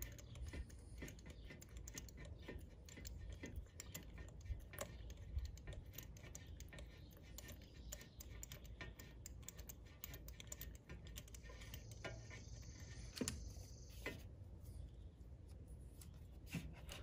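Faint, irregular light clicks and ticks of a spark plug socket and extension being turned by hand, threading a new iridium spark plug into the 3.6 L V6's plug well, with a brief faint hiss about twelve seconds in.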